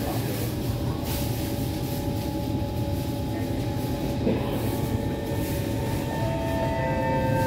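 Kawasaki C151 metro car standing with a steady electrical hum, then about six seconds in new tones from the traction motor come in as the train starts to pull away. The motor is strong in this car.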